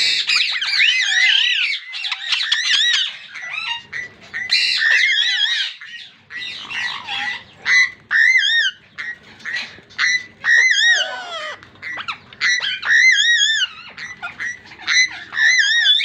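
Ringneck parakeets giving many repeated, wavering harsh squawks in quick succession.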